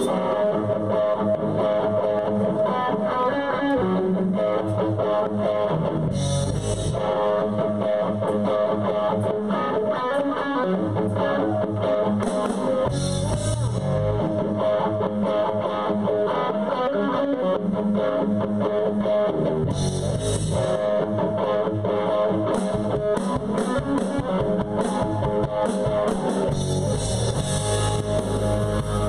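Live band playing an instrumental stretch with no vocals, led by electric guitar in a rock style.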